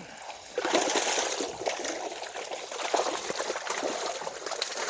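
Water streaming and splashing out of a collapsible mesh keep net as it is lifted out of the water, starting about half a second in.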